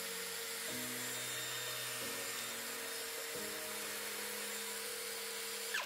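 Cordless drill spinning a sanding pad on a turned hex adapter, running free without load. Its motor pitch shifts a few times, and it stops abruptly near the end.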